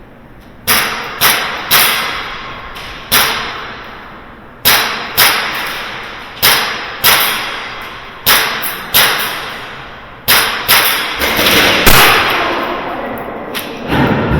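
Airsoft guns firing single shots: about fifteen sharp cracks at uneven intervals, each followed by a long echo in a large indoor room.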